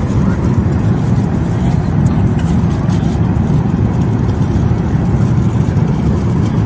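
Steady low cabin noise of a Boeing 747-8 in cruise flight, engine and airflow noise heard from inside the cabin, unchanging throughout.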